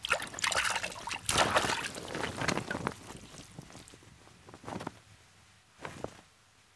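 Splashing and bubbling water from a bird diving under the sea and surfacing, busiest in the first three seconds, then a couple of short faint splashes before it dies away.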